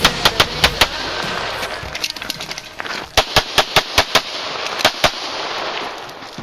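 Rapid pistol fire from a .40 S&W Tanfoglio Witness: well over a dozen shots in quick strings and pairs, with a short lull in the middle, as in a stage run at a practical pistol match.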